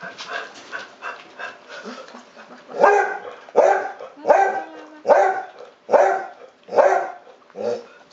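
A dog barks seven times in a steady run, about one bark every 0.7 s, starting about three seconds in. Before that come quieter rapid wet clicks of an English Springer Spaniel licking and chewing cream cake.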